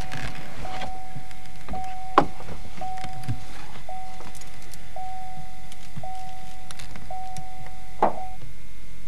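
A steady, single-pitched electronic tone sounding in pulses about a second long with short breaks, some eight times, stopping near the end, over a steady hiss. A sharp click comes about two seconds in and another near the end.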